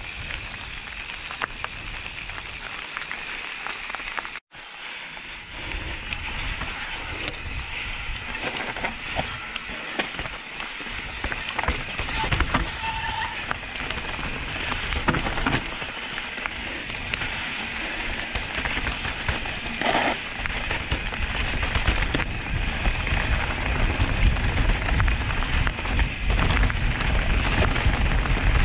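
Mountain bike riding down a dirt trail, heard from a camera mounted on the rider or bike: tyres rolling over dirt and stones with a steady clatter and rattle from the bike, mixed with wind on the microphone, getting louder in the second half as the descent speeds up. A brief cut-out about four seconds in.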